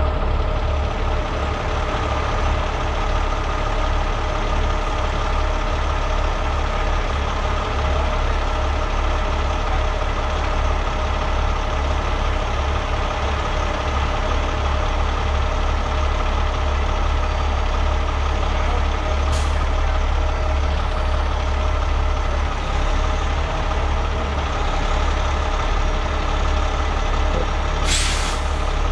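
Heavy rotator tow truck's diesel engine running steadily while its boom holds a burned fuel tanker wreck aloft. Two short hisses of air cut in, a brief one at about twenty seconds and a longer one near the end.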